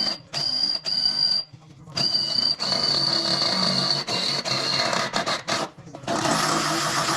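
Power drill motor whining in a series of short trigger pulses, stopping and starting several times, then a longer, noisier run near the end as it drills a mounting hole.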